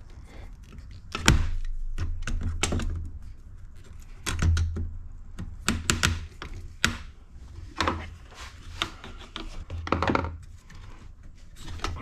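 Channel-lock pliers working a hose clamp off a plastic intercooler pipe: irregular metal clicks and dull knocks as the pliers grip, slip and tap against the clamp and pipe, with a louder knock about a second in.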